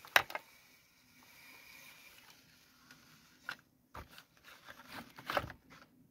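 Stiff plastic blister packaging of a wood chisel set being handled: a sharp crackle at the start, then scattered clicks and crinkles, with a louder burst of crackling near the end.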